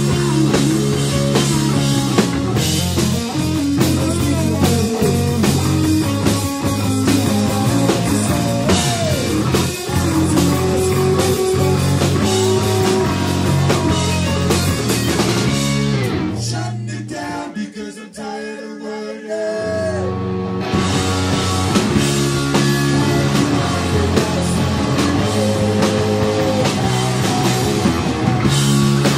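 Rock band playing with drums, bass and guitar. A little past halfway, the bass and drums drop out for about four seconds, leaving a quieter passage, then the full band comes back in.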